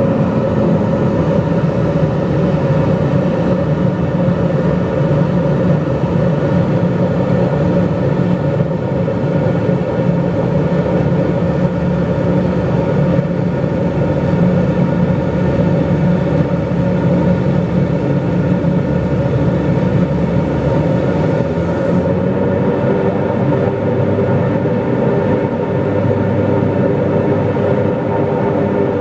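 Inside the cabin of a Dornier 228 commuter plane, its twin turboprop engines and propellers give a loud, steady drone with several humming tones.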